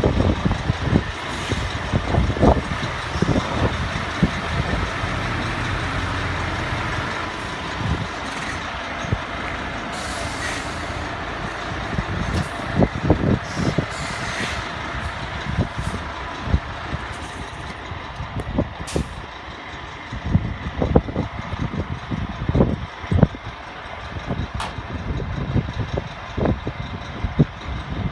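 Scania P280 refrigerated truck running with a steady mechanical hum, overlaid by irregular knocks and clunks.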